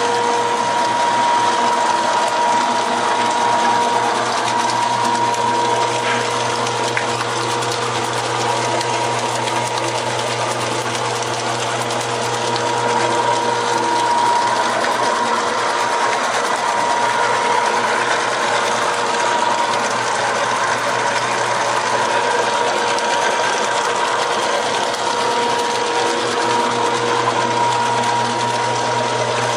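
Motor-driven rotary potato slicer running steadily: a constant mechanical hum with a few steady tones, as potatoes fed through its tubes are cut into chip slices.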